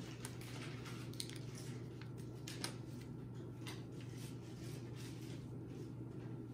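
A gift package being handled and opened: scattered light clicks and rustles of packaging over a steady low hum.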